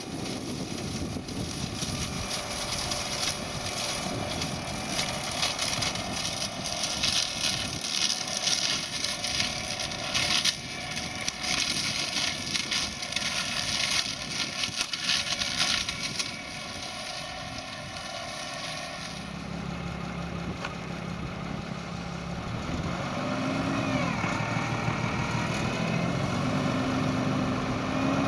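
Spearhead Excel 565 flail hedge cutter head spinning and cutting into a hedge, a dense noise full of small cracks of snapping twigs over the Renault 155-54 Turbo tractor's diesel. From about 19 seconds in, the tractor's diesel engine is heard close and steady, its pitch rising once a few seconds later and holding higher.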